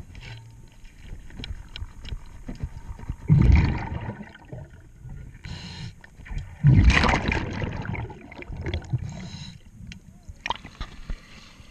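Scuba diver breathing through a regulator underwater: short hissing inhalations and two loud rushes of exhaled bubbles a few seconds apart.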